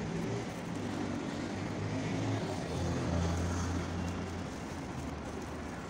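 Low hum of a vehicle engine running close by, swelling toward the middle and fading near the end, over general street noise.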